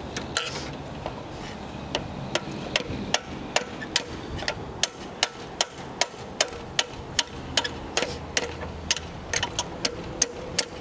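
Light, even tapping of a hammer on a metal punch, about three taps a second, driving small pins out of a sailboat's roller-furling foil.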